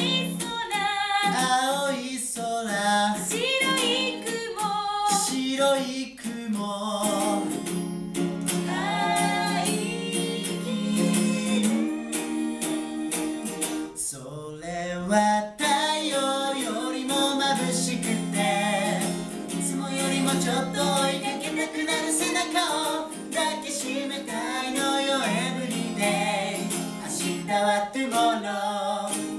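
A young man and a young woman singing a light pop duet in Japanese, accompanied by a strummed small acoustic guitar.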